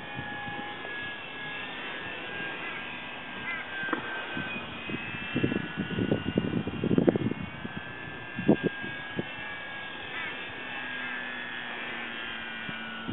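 Electric motor and propeller of a 1.4 m radio-controlled Spitfire model, powered by LiPo packs, whining steadily overhead at about half throttle, its pitch drifting slowly as the plane circles. A few louder low rustles come through near the middle.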